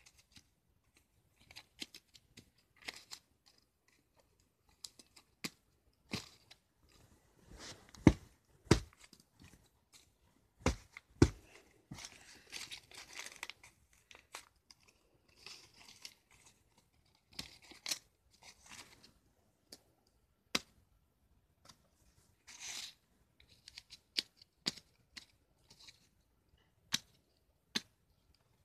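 Paper being torn and crumpled by hand in short, irregular rustles, with a few sharp knocks, the loudest about 8 and 11 seconds in.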